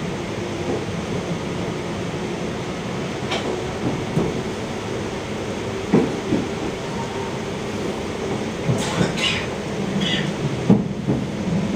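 TER regional train running, heard from inside the passenger carriage: a steady rumble with scattered sharp knocks and clicks from the track, coming more often near the end.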